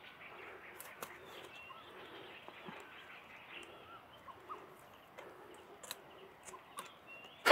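Quiet forest ambience: scattered faint clicks and rustles of someone moving through dry brush, with a few faint bird chirps.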